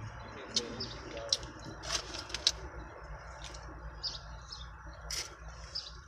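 Close-up mouth sounds of eating fried chicken wings: chewing and lip-smacking, a string of short wet clicks at uneven intervals over a steady low hum.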